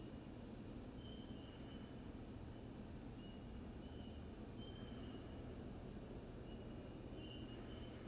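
Quiet room tone with a steady low hum, over which short high-pitched tones at two different pitches come and go irregularly, each lasting about half a second.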